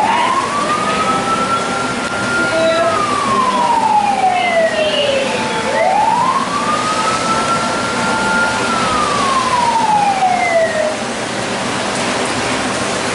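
Fire-engine wail siren sound effect going with a model fire truck: a slow wail that rises, holds, then falls, heard twice, and dies away about two seconds before the end.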